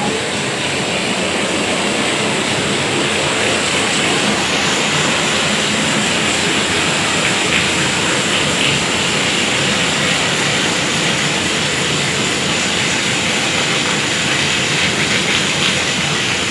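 Heavy rain falling, with runoff pouring off a roof edge and splashing onto tiled paving, a steady, even hiss.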